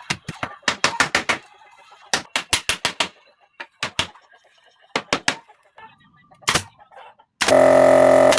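Sharp, irregular knocks of blows on wood, several in quick runs. Near the end comes the loudest sound: a rooster crowing loudly for about two seconds.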